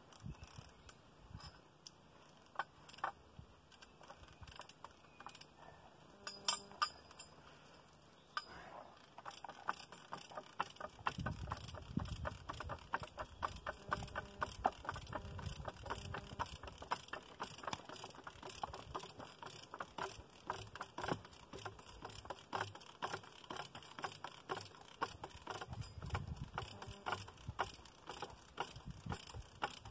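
Tree jack being worked by hand against a large log, its ratchet clicking. The clicks are scattered at first, then from about a third of the way in they become a steady run of several clicks a second. A low rumble comes twice, under the clicking.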